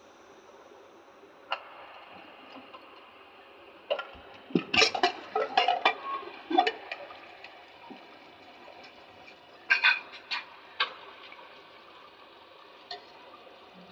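Metal clicks and clanks of a pressure cooker's inner lid being worked loose and lifted off the pot: a cluster of sharp knocks about four to seven seconds in, a few more around ten seconds, and one faint click near the end.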